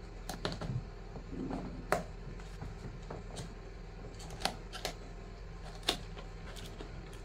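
Cardboard product box being opened by hand: scattered sharp clicks and taps of the flap and packaging being pried and pulled, the strongest about two seconds and six seconds in, over a steady low hum.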